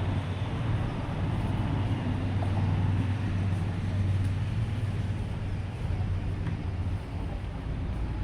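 Low, steady rumble of a vehicle engine running nearby, over general road-traffic noise; the rumble eases off near the end.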